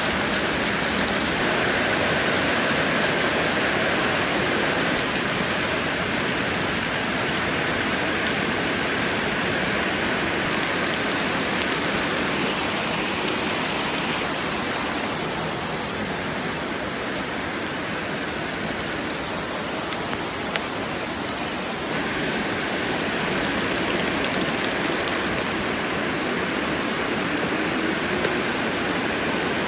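Heavy rain pouring down steadily in a dense, unbroken hiss, changing slightly in tone a couple of times.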